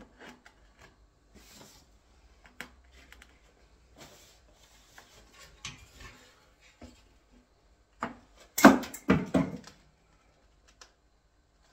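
A ceramic wall tile being trimmed and handled by hand: scattered light clicks and short scraping, with a few seconds of rasping about four seconds in, then a burst of several loud knocks about eight and a half seconds in.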